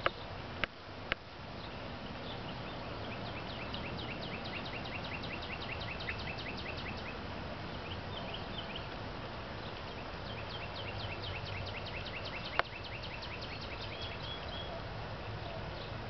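A songbird singing a fast trill of short down-slurred chirps in two bouts of several seconds each, over a steady outdoor background. A few sharp knocks come near the start and one more about three-quarters of the way through.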